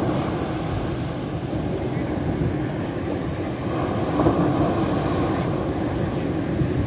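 Sea surf: waves breaking and washing up a pebbly sand beach, with wind noise on the microphone. One wave breaks a little louder about four seconds in.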